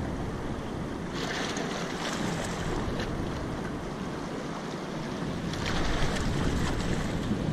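Wind buffeting the microphone over a steady rush of moving river water below a dam, with the wind hiss swelling twice.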